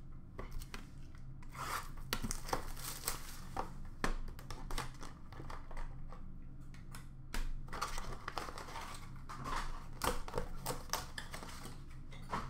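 A 2021 Topps Clearly Authentic baseball card box being torn open by hand: irregular tearing and crinkling of the packaging, with scrapes and small clicks as the plastic-cased cards are handled.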